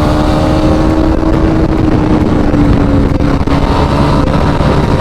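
KTM Duke 200 BS6 single-cylinder engine running at a steady cruising speed while being ridden, its pitch holding nearly level, over rushing wind and road noise.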